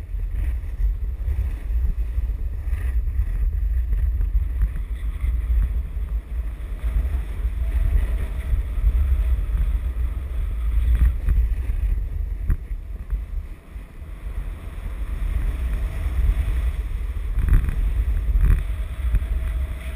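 Wind buffeting an action camera's microphone during a fast downhill run, a steady low rumble with the hiss of sliding over packed snow beneath it. The rumble eases briefly about two-thirds of the way through, and a couple of knocks come near the end.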